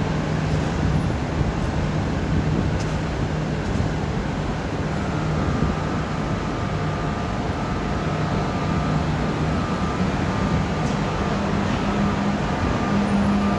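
AVE high-speed train in a station, running with a steady noise, a low hum and a faint higher whine; the hum rises slightly in pitch about ten seconds in.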